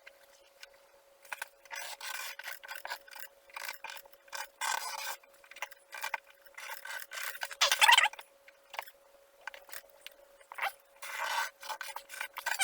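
Short, irregular bursts of rubbing and scraping: plastic diffuser pieces being slid and positioned against a car's taped rear bumper. A faint steady hum runs underneath.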